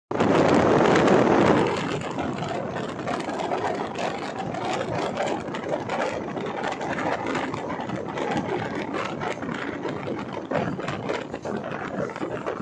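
Running noise of an LHB passenger train heard on board: a steady rumble of wheels on rail with many small clicks, louder for the first second and a half.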